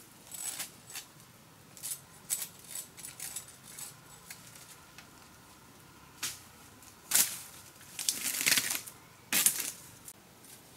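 Dry bamboo and palm leaf litter crackling and crunching underfoot and in hand: scattered small crackles, then a few louder crunches in the second half, one lasting about a second.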